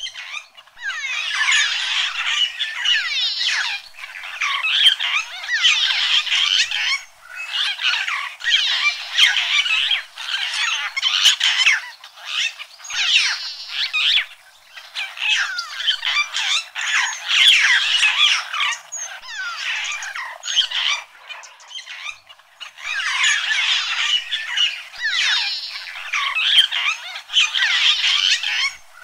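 A dense chorus of animal calls: many overlapping, chattering, sliding notes that come in bursts a few seconds long, with short breaks between them.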